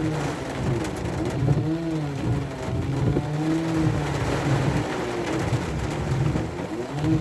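Background music made of held notes that bend in pitch, over a noisy bed.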